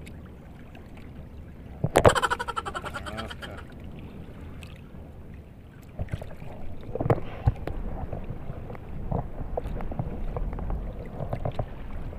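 Water sloshing and slapping against the hull of a pedal water bike as it rocks on choppy sea, with scattered knocks from about six seconds in. About two seconds in comes a sudden loud sound that fades over a second and a half.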